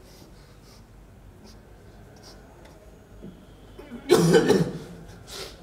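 A person coughing once, loudly, about four seconds in, over faint room noise.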